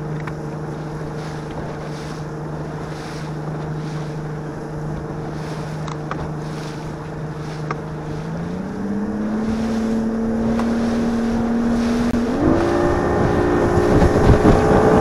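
Bass boat's outboard motor running under way, its steady drone stepping up in pitch twice, about eight seconds in and again near the end, as the throttle is opened. Wind buffets the microphone and water rushes and slaps against the hull, growing louder with the speed.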